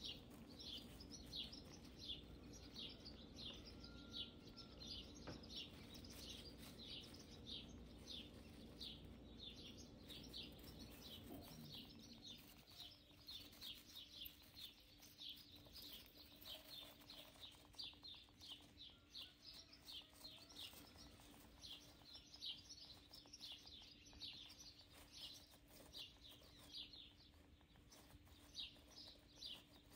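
Faint, steady chirping: short, slightly falling chirps, about two or three a second, over a low steady hum.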